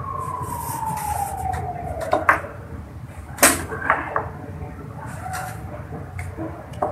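Plastic chess pieces being set down on a board and a digital chess clock being tapped: a few sharp clicks, the loudest about halfway through and another just before the end. Under the first two seconds, a long tone slides steadily down in pitch and fades out.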